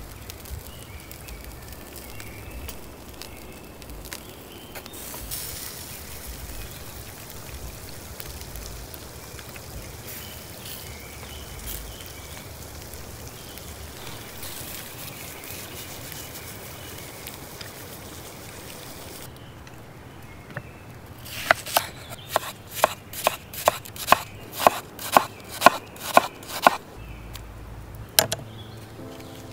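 A knife chopping on a wooden cutting board: a run of sharp, even knocks about three a second for some five seconds, starting about two-thirds of the way in, with one more knock near the end. Before that only a faint steady background hiss.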